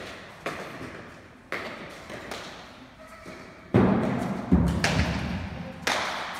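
Sharp echoing smacks of a pelota ball, struck by bare hands and hitting the court's walls and floor during a main-nue rally. There are a few lighter hits, then heavier, louder ones from a little past halfway.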